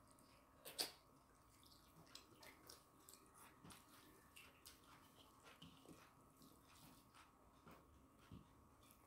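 Faint eating sounds: chewing, and fingers mixing rice and chicken curry on steel plates, with many small irregular clicks and one sharper click just under a second in.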